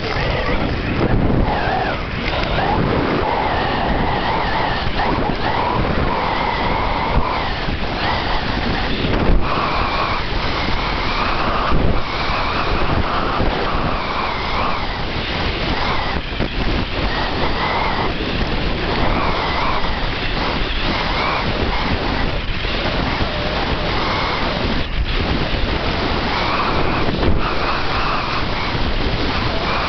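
Rushing wind on a handheld camera's microphone while skiing fast downhill, mixed with skis hissing and scraping over packed snow. The sound swells every few seconds as the skier turns.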